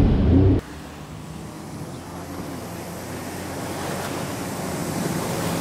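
Loud rush of wind and water on the towed tube, cut off abruptly about half a second in. It gives way to a jet ski engine running out on the water, steadily growing louder.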